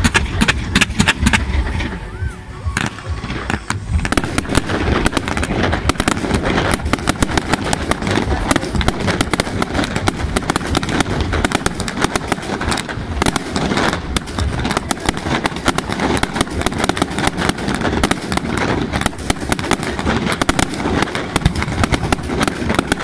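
Aerial fireworks display: a dense barrage of shell bursts and crackling stars, many sharp bangs and crackles a second, with a brief lull about two seconds in.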